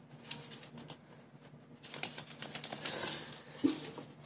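Folded paper models being handled: light crinkling and rustling of paper with small taps, swelling about halfway through, and a soft thump near the end.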